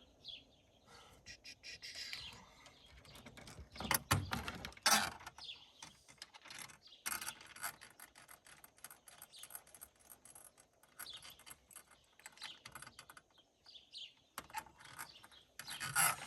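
Intermittent clicks, taps and light rattling of small metal fittings and hand tools being handled, a few sharper knocks among them, with faint bird chirps in the background.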